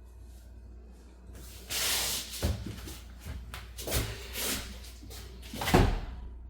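Handling at a washing machine: a loud rustle, then several knocks and thumps, the loudest near the end, like a door or lid being shut.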